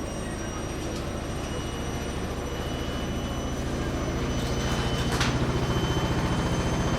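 Steady machine hum with a fast, even low pulsing that grows gradually louder, with a couple of faint brief clicks or splashes over it.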